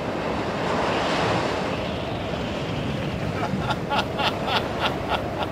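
Stormy wind and waves at sea: a steady rushing noise that swells about a second in, with a quick run of short, sharp slaps in the second half.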